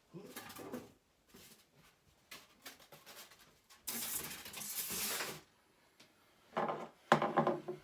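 Statue packaging being handled and opened: intermittent rustling, rubbing and knocks, with a longer scraping rush lasting about a second and a half about four seconds in, and a sharp knock near the end.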